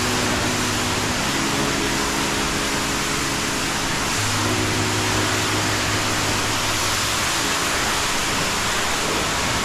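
Pressure washer spraying water: a steady hiss, with the washer's engine running steadily underneath.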